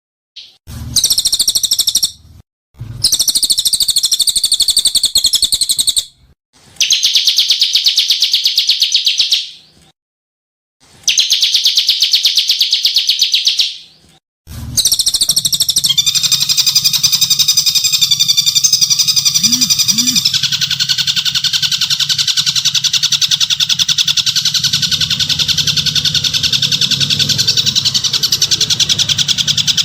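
Harsh, rapid-fire songbird chattering and rattling from an edited masteran birdsong training track. The calls come in blocks of a few seconds that start and stop abruptly, with dead silences between them. About halfway in the calls become continuous and overlap in several layers.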